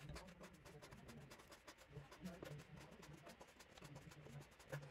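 Near silence, with the faint scratch of a marker tip stroking across paper.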